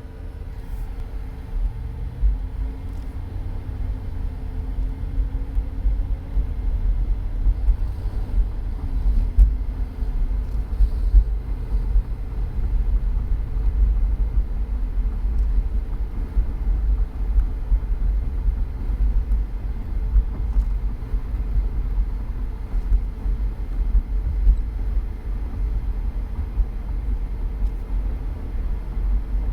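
A Cadillac with a steady low rumble that grows louder over the first few seconds. A faint hum fades away in the first several seconds. This is the strange noise the owner is recording.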